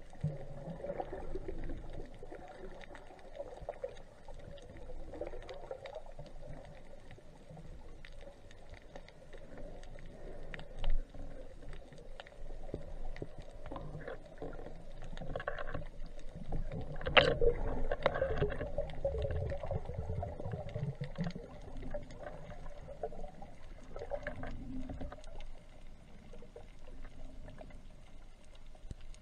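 Underwater ambience picked up by a submerged camera: a muffled low wash of moving water with scattered faint clicks and crackles, and one sharper click about 17 seconds in.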